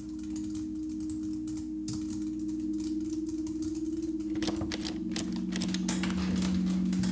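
Typing: irregular key clicks over a low, steady drone. The clicking grows faster and louder past the middle, and the drone shifts to a lower note.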